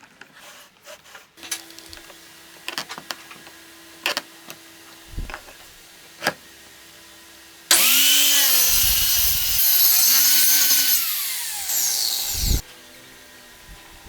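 Homemade power miter saw cutting wood for about five seconds, its motor pitch dipping and recovering as the blade takes the load, then cutting off abruptly. Before the cut come a few light clicks and knocks and a faint steady hum.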